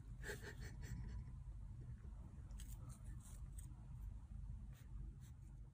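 Faint small clicks and rustles of a kitten pawing at and biting a small blue plastic object, clustered near the start and again around three seconds in, over a low room hum.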